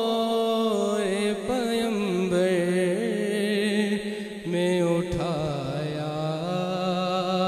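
A young man's solo voice chanting an Urdu naat, holding long, winding melodic lines without words breaking through, with a short break for breath about halfway.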